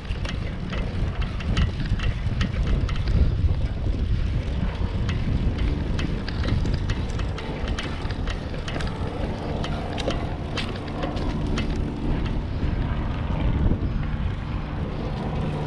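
Wind buffeting the microphone of a bicycle-mounted action camera while riding, a steady low rumble, with scattered small clicks and rattles as the bike rolls over the road.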